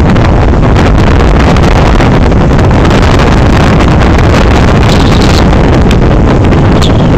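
Storm-force wind blasting across a phone's microphone, a loud, steady low rumble over the surf of large breaking waves.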